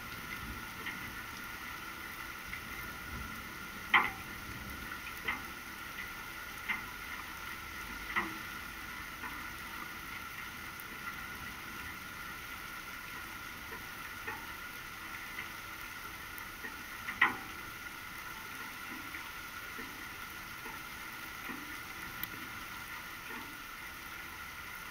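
Light summer rain falling steadily, with scattered sharp taps of drops striking a surface close to the microphone, the loudest about four seconds in and again around seventeen seconds.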